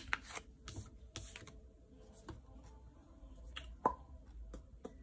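Tarot cards being handled: a few scattered soft clicks and slaps as the deck is cut and a card is drawn and laid out, the sharpest one a little under four seconds in.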